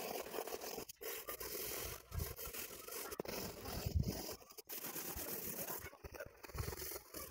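Coloured pencil shading on paper: a steady dry scratching of the lead over the sheet, with brief pauses about a second in and again at about four and a half seconds.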